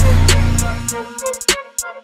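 Background hip-hop style music with a heavy bass and drums; about halfway through the bass drops out, leaving a few sharp drum hits and a brief pause, like a break in the beat.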